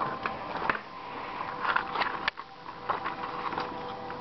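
Paper user guide and cardboard disc sleeve being handled and lifted out of a motherboard box: a string of irregular rustles and small knocks.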